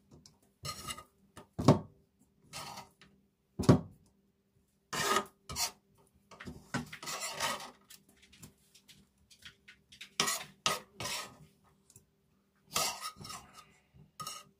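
Kitchen utensils and a mortar being handled: a few hard knocks and several short scraping sounds at irregular intervals.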